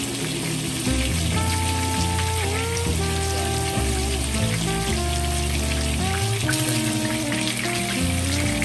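Oil sizzling and crackling steadily around a whole golden pompano frying in a nonstick pan, with background music playing over it.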